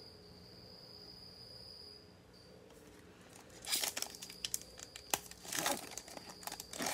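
A cricket chirping in one steady high trill for the first two seconds or so. Then, from about three and a half seconds in, a foil trading-card pack crinkles and tears as it is ripped open, with the cricket still faintly trilling underneath.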